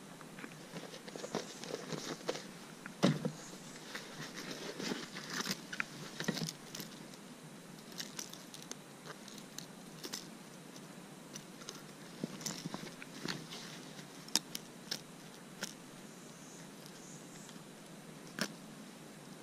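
Scattered clicks, light rustling and a few sharp knocks as a landing net and a pair of fishing pliers are handled in a kayak.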